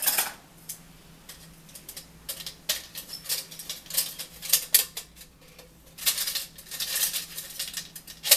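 Plastic spoons clattering against each other and against an empty aluminium soda can as a handful is worked into it, in several bursts of light rattling and clicking with a sharper click near the end.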